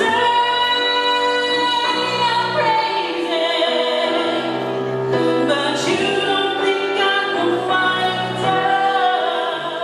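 A singer on stage holding long, drawn-out notes over musical accompaniment, with no clear words.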